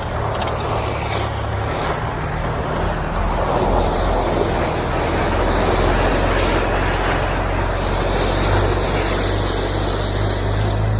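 A steady engine hum with a rushing wind or water noise over it, running evenly.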